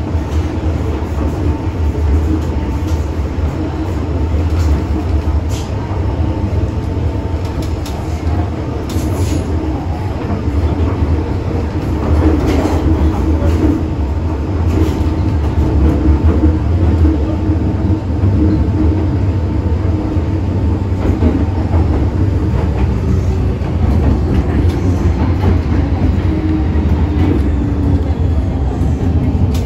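Cabin noise of a Hong Kong MTR M-train metro car running on the line: a steady low rumble from wheels and track, with a motor hum and a few short clicks. Near the end the hum falls in pitch.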